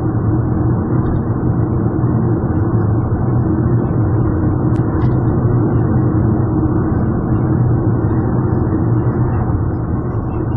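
Steady drone of a car's engine and tyres on the road, heard from inside the cabin while driving along at an even pace.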